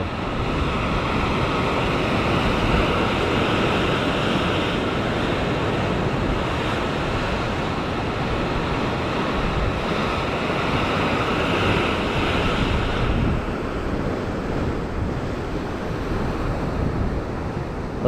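Ocean swell surging and breaking over a rock ledge, a steady wash of surf with wind rumbling on the microphone. It eases slightly in the second half.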